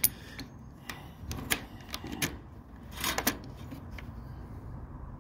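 Wire-mesh hatch of a wooden chicken run being shut and latched: a series of irregular sharp clicks and light rattles, with a cluster of louder ones about three seconds in.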